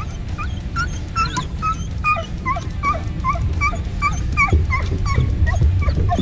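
Border Collie whining in quick, short, high-pitched yips, about three a second, as a hooked bass is brought in to the boat, over a steady low rumble.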